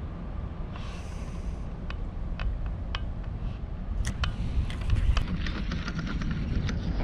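Wind buffeting the microphone as a steady low rumble, with scattered light clicks and ticks from the fishing rod and spinning reel being worked, coming more often in the second half.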